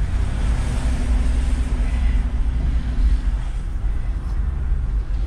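Toyota LandCruiser 70 Series heard from inside the cabin, driving slowly on a wet dirt track: a steady low engine and drivetrain rumble with a rushing wash of tyre noise, stronger in the first few seconds.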